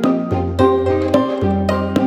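Instrumental music in a traditional Chinese style: a melody of short, bright notes, several a second, over long held bass notes.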